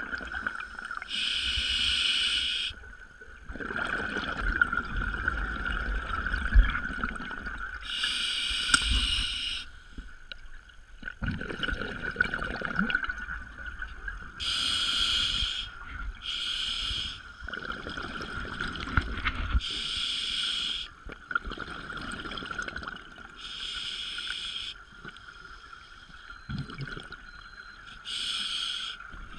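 Scuba diver breathing through a regulator underwater: seven bursts of exhaled bubbles, each a second or so long and a few seconds apart, over a steady high hum.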